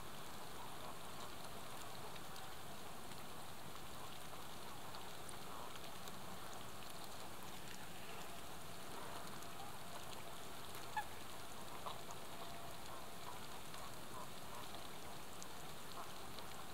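Steady outdoor hiss, with faint short calls from Canada geese scattered through the second half and one sharp click about eleven seconds in.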